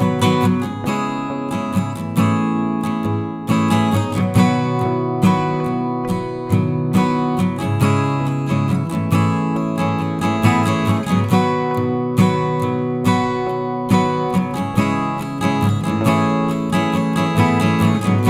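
Background music: acoustic guitar, plucked and strummed in an even rhythm.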